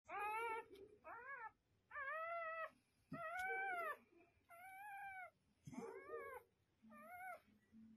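Newborn puppy crying: a run of about seven short, high-pitched, meow-like cries. Each rises and falls in pitch and lasts under a second.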